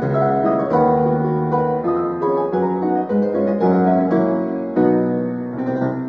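Background piano music, a run of sustained chords and melody notes.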